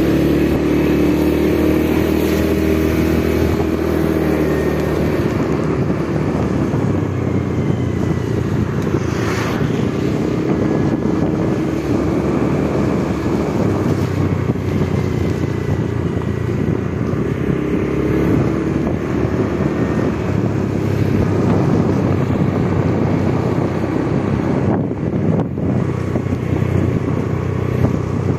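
Motorcycle engine running steadily while riding, its note rising and falling a little with speed, with wind rushing over the microphone.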